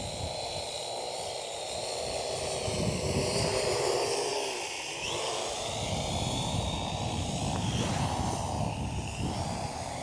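Parrot AR.Drone quadcopter in flight: its motors and propellers whine steadily, the pitch shifting as the throttle changes and stepping up about five seconds in, over a low rumble.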